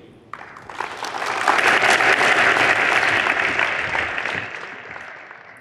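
Audience applauding, swelling over about a second, then slowly dying away.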